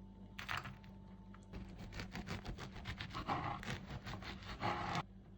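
Rapid scraping and rubbing strokes, like food-prep work on bread: one short scrape about half a second in, then a quick run of rasping strokes for about three and a half seconds that stops abruptly.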